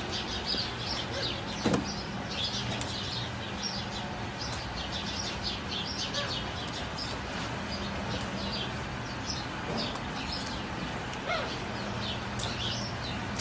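Small birds chirping in quick, repeated short notes over a steady low hum, with a single sharp knock about two seconds in.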